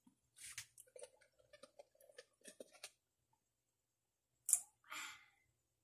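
Faint small clicks and mouth sounds of people sipping strawberry shake through straws from plastic cups. About four and a half seconds in there is a short sharp sip, followed by a brief breathy hiss.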